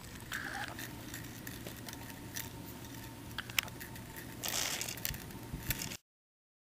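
Small steel chain being fed link by link into a PVC pipe canister round, making faint scattered clinks and light rattles, with one sharper click about three and a half seconds in. The sound cuts off to dead silence about six seconds in.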